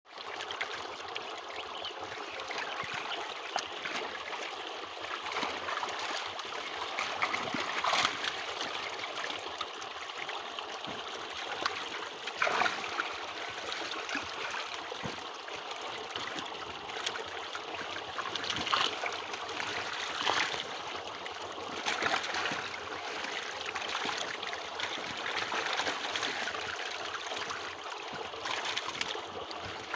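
Water splashing and trickling in a tilapia pond, with louder splashes every few seconds as a hand net is dipped and lifted and water drains through its mesh. Crowded fish thrash at the surface.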